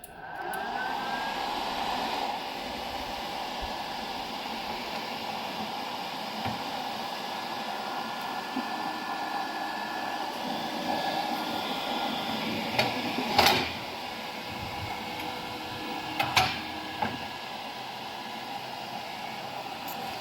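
Cooling fan inside a DTF printer switched on and running: a steady whir with a faint whine. Two sharp knocks come about two-thirds of the way through, a few seconds apart.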